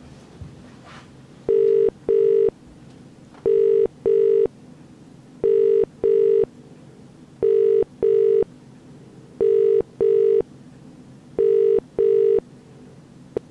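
British telephone ringback tone: six double rings, one pair every two seconds, a steady two-note buzz in each burst. It is the signal that the called phone is ringing and nobody has answered yet.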